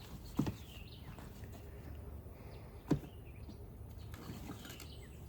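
Quiet handling of old papers and items from a box: two soft knocks, about half a second in and again near three seconds, over a low steady hum.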